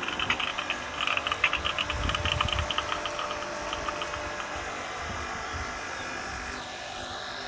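Kärcher electric pressure washer running with the trigger held, its motor and pump humming while water sprays from the lance, with irregular crackling clicks through the first few seconds. The machine keeps flowing water without building pressure.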